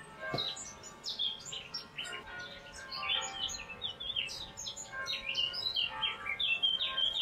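Small birds chirping busily: many quick, high, downward-sliding chirps overlapping one another throughout.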